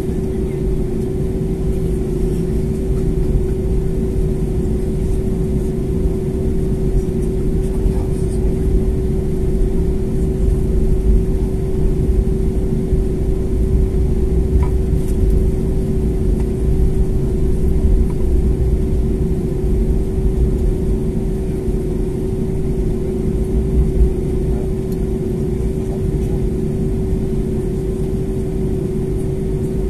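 Cabin noise of an Airbus A320neo taxiing, heard from a window seat: its Pratt & Whitney PW1127G geared turbofans running at taxi power, a steady drone with a constant hum over a low rumble.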